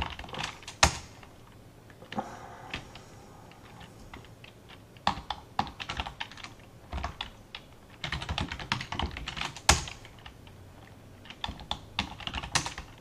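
Typing on a computer keyboard in short bursts with pauses between them. Two single keystrokes, about a second in and again near ten seconds, are harder and louder than the rest.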